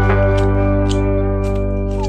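Background music: a held chord rings out and slowly fades, with faint light percussion ticks.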